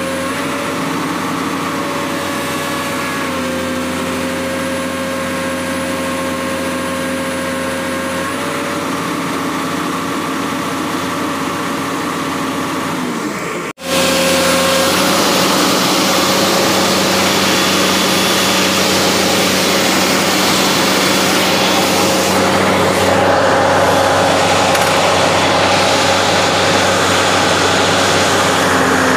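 Komatsu PC200-8MO excavator's diesel engine running steadily during a crankcase blow-by pressure test. The sound breaks off abruptly for a moment about halfway through, and after that it comes in louder and rougher.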